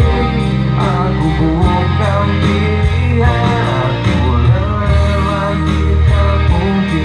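A man singing an Indonesian pop ballad into a microphone over a band accompaniment with guitar and a steady bass.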